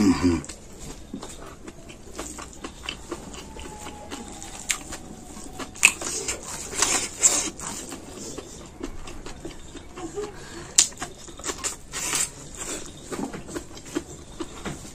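Close-up eating sounds of a person eating curry and rice with the hand: wet chewing and lip smacks, with fingers working the food on a steel plate, as a string of irregular clicks and smacks. A brief low sound comes right at the start.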